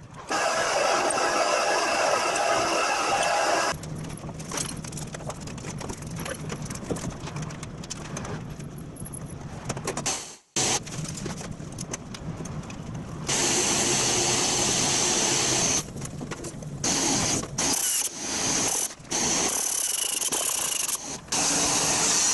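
A drill press boring through an aluminium side-gate extrusion for about three and a half seconds. After a quieter stretch, a power tool runs in several short bursts from about halfway on.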